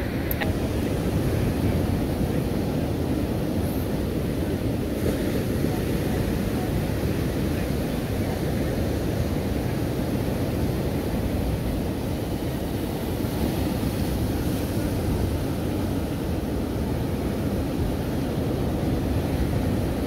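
Steady wind buffeting the microphone, mixed with the wash of ocean surf.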